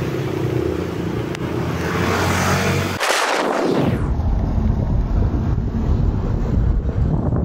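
Wind rushing over the handheld phone's microphone while riding a road bike at about 36 km/h. A motor vehicle's engine hum mixes in over the first three seconds, then the sound changes abruptly about three seconds in.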